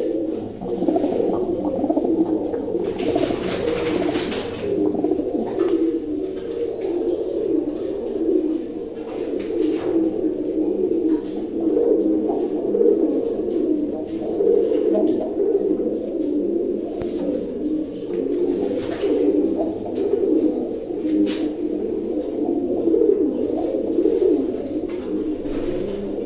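Domestic pigeons cooing continuously, their low warbling coos overlapping without a break, with a brief rustle about three seconds in.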